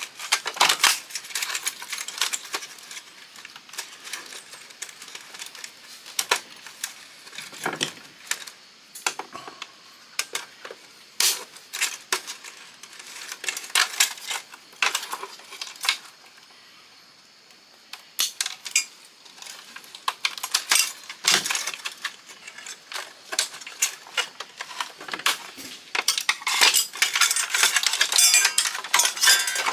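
Clicks, knocks and clatter of plastic and metal parts being handled and pried as an old Canon fax machine is taken apart, with a brief lull in the middle and a dense run of rapid clicking near the end.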